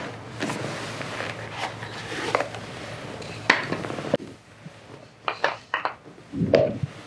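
Clicks, light knocks and rustling of hands handling a pair of leather loafers: wooden shoe trees being pulled out and the shoes picked up and moved, with a soft thud near the end.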